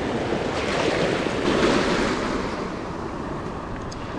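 Steady rushing of a shallow, fast creek running over gravel, with wind buffeting the microphone.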